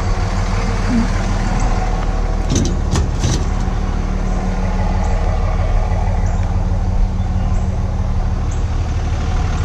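A vehicle engine running at a steady pitch, with three or four sharp knocks about two and a half to three and a half seconds in.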